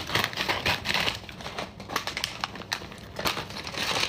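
Plastic packaging being crinkled and handled: an irregular run of crackly rustles and small clicks.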